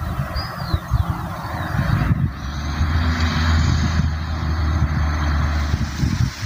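A motor vehicle's engine running steadily on the road, a low hum that swells about three seconds in and fades near the end, over wind buffeting the microphone. A few faint bird chirps in the first second.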